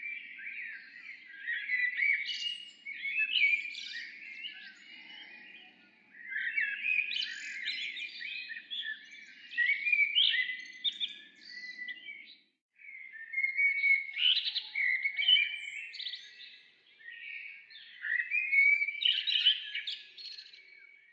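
Songbirds singing and chirping in a dense chorus, in several long phrases with a brief complete break about twelve seconds in.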